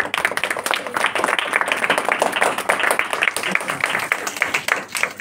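Audience applauding: many hands clapping at once in a dense, steady stream.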